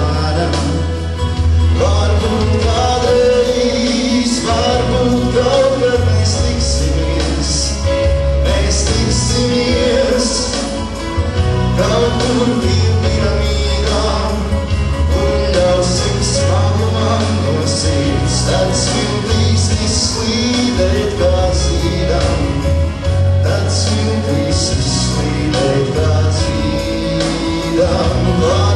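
A man singing a slow song in Latvian into a handheld microphone over a musical accompaniment with a steady bass line.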